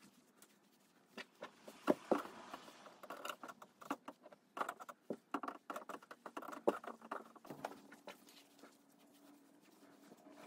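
Rustling and irregular light taps and knocks as cut fabric pieces and fusible interfacing are handled and pressed with an electric iron, with the loudest knocks about two seconds in.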